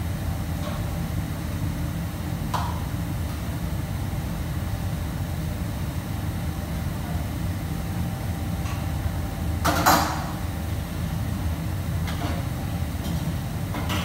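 Kitchen background: a steady low hum, with a few brief clatters, the loudest about ten seconds in.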